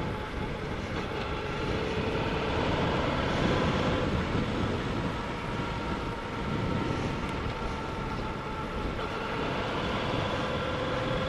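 Motorcycle riding at a steady road speed: the engine's even hum with wind rushing over the microphone.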